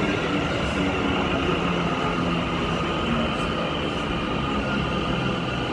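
Train running along the tracks at a station: a steady, even rumble of wheels and machinery with a faint whine in it.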